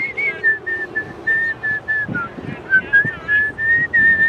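A person whistling a tune: a run of clear held notes, some steady and some sliding or wavering, with short breaks between them.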